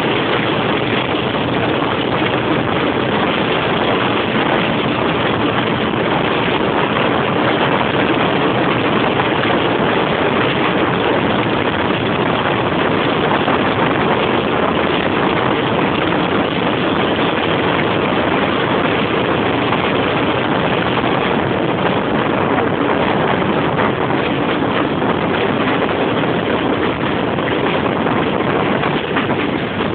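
British Rail Class 25 diesel locomotive's Sulzer six-cylinder engine working hard under power, heard through an open carriage window as a loud, steady running noise mixed with rushing air.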